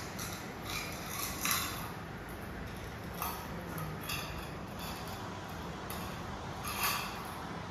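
Stainless-steel feeding bowls clinking and scraping on a tiled floor as puppies nose and push them about, with several separate sharp clinks, the loudest about a second and a half in.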